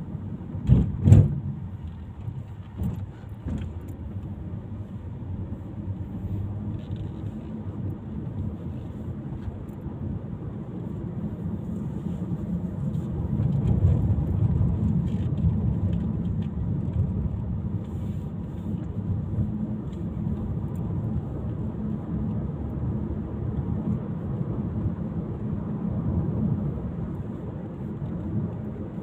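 Car driving along a road, its engine and tyre noise a steady low rumble that swells for a few seconds midway, with a couple of sharp knocks about a second in.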